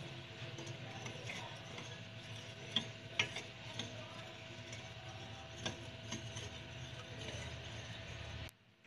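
A steel spoon stirring syrup and powdered sugar into water in a glass bowl, with faint scattered clicks and scrapes of the spoon against the glass over a steady low background hum. It cuts off suddenly near the end.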